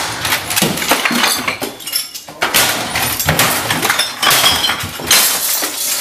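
Objects being smashed in a room: a rapid series of loud crashes and breaking sounds, with glass clinking and breaking among them.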